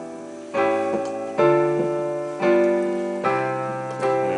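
Piano playing a slow chord progression: a new chord struck about once a second, five times, each left to ring and fade before the next.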